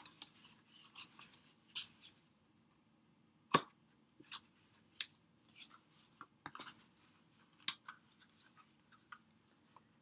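Cardstock being handled and folded on a craft mat: faint paper rustles with scattered light taps and clicks at uneven intervals, the sharpest about three and a half seconds in.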